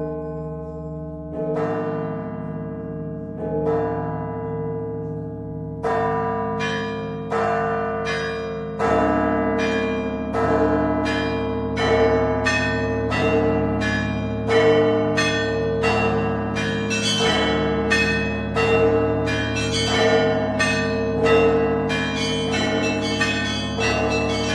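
Russian Orthodox bell ringing (zvon) on the Danilov Monastery bells, played by a single ringer: for the first few seconds a slow strike about every two seconds, then about six seconds in the small high bells join in a fast rhythmic peal over the low bells ringing on underneath.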